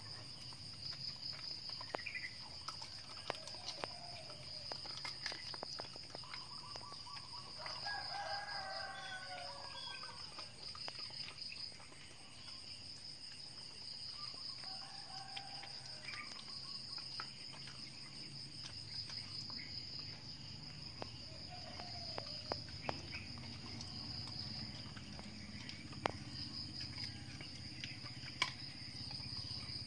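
A rooster crowing about eight seconds in, with a few shorter fowl calls now and then, over a steady high insect trill. Scattered faint clicks sound throughout.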